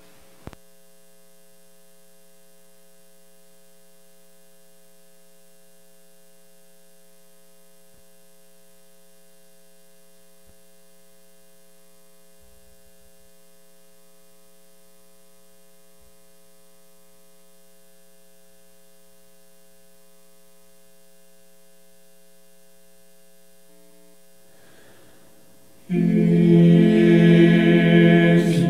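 A steady electrical hum with a few fixed faint tones and a single click just after the start. About 26 s in, a recorded choir suddenly starts singing loudly, which becomes the loudest sound.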